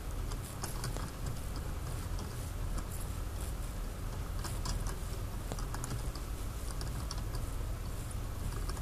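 Magnetic kinetic desk toy spinning on its pivot, giving faint, irregular light clicks over a steady low hum.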